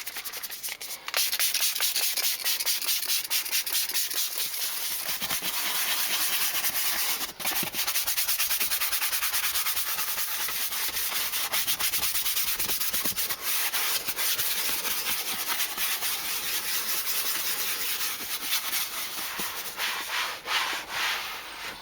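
Leather car seat being scrubbed with leather cleaner: a fast, steady scratchy rubbing that starts about a second in and breaks off briefly once.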